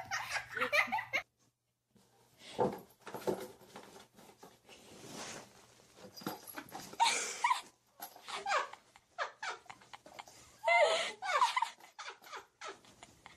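People laughing in short outbursts, with a few knocks and rustles in between.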